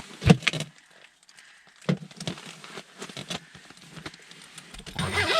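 Scattered clicks, knocks and crinkling rustles from handling line and gear on the ice, the loudest a sharp knock about a third of a second in; a voice begins near the end.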